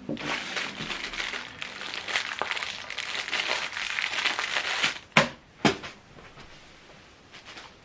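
Plastic packaging crinkling as it is handled and unwrapped for about five seconds, then two sharp clicks.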